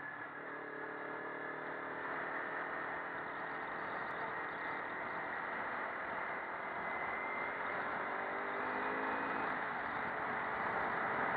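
Kawasaki Ninja 300's parallel-twin engine running at road speed under a steady rush of wind and road noise, its engine note holding fairly steady.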